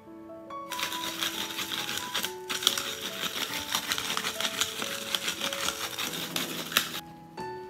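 Pepper grinder grinding black peppercorns: a dense, crackly rattle in two goes, with a short break about two and a half seconds in. Soft piano music plays underneath.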